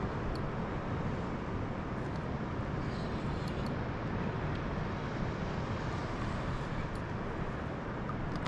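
Steady rushing noise of wind buffeting an action camera's microphone at sea, with a few faint clicks.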